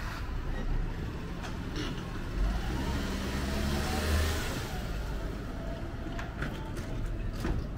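A motor vehicle passing close by on a city street, its engine and tyre noise swelling to a peak about four seconds in and then fading.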